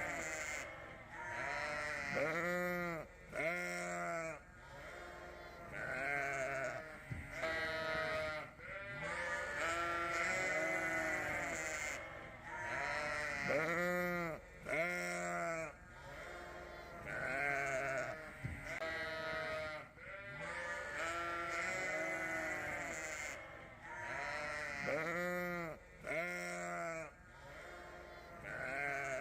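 Lambs bleating over and over, many calls overlapping, each call rising and then falling in pitch.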